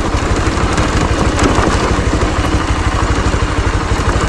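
Bajaj Pulsar motorcycle's single-cylinder engine running steadily at low speed while riding over a loose gravel track, its fast even firing beat under a constant rushing noise.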